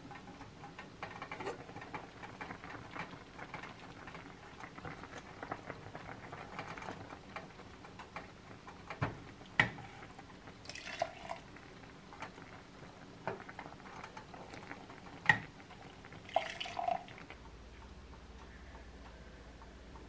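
Liquid poured from a pitcher into a stainless steel cooking pot, with small ticks and a few sharp metallic clinks.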